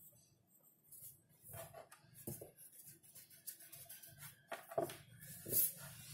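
Pencil scratching on drawing paper in short, separate strokes, with the rustle of a hand moving over the sheet; the loudest scrapes come near the end.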